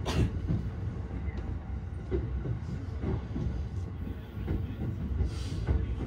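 Interior running noise of an electric commuter train: a steady low rumble of wheels on rails with small irregular knocks, plus brief hissing near the start and near the end. The train is running at reduced speed under a strong-wind restriction.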